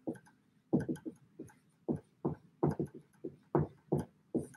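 Dry-erase marker writing on a whiteboard: a quick run of short, irregular strokes, about two or three a second.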